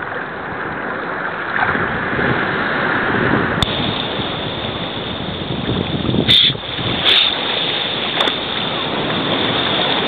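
Sea waves washing and water sloshing around a camera held right at the water surface. There are a few sharp splashes or knocks against it, the loudest about six and seven seconds in.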